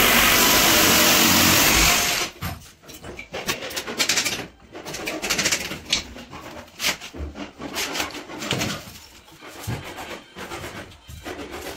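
A power tool runs loudly and steadily, then cuts off about two seconds in. Scattered knocks and clicks of wood and tools being handled follow.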